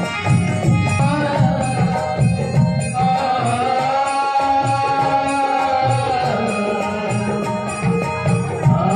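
A man singing a Kannada song into a microphone over a harmonium, with hand-drum beats keeping time. He holds one long, wavering note through the middle, while the drumming thins out and then picks up again.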